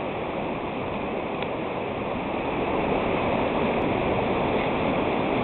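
River rapids rushing over a rock ledge: a steady wash of whitewater that gets a little louder in the second half.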